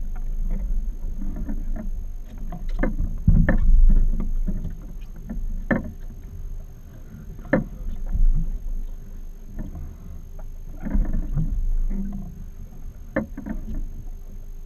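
Wind and water against a small fibreglass boat as it drifts, with scattered sharp knocks and clicks from people moving and handling fishing gear on deck.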